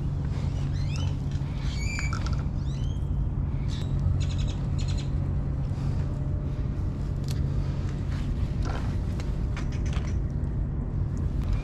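Birds calling: several short chirps that slide up and down in the first few seconds, then a quick run of repeated notes about four seconds in. A steady low hum runs underneath.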